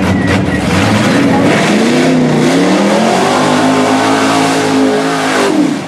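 Lifted Chevrolet Silverado mud truck's engine revving hard as it charges into a deep mud pit, climbing in pitch about two seconds in and held at high revs. Mud and water spray churn under it, and the revs drop away sharply near the end.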